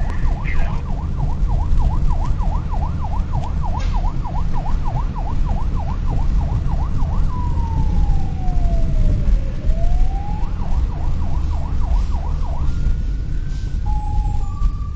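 Fire truck's electronic siren in fast yelp sweeps, changing about seven seconds in to one slow falling-then-rising wail, then back to yelping, with a few short steady tones near the end. A heavy low rumble of engine and road noise lies under it.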